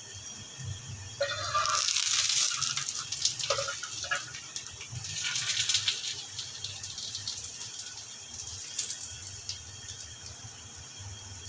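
Paratha frying in a pan, sizzling and crackling with many tiny pops, swelling louder twice and easing off near the end. A short pitched squeak sounds about a second in.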